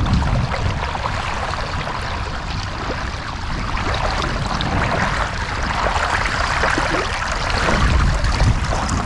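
Steady hiss and trickle of shallow tidal water over a mudflat, with wind rumbling on the phone's microphone.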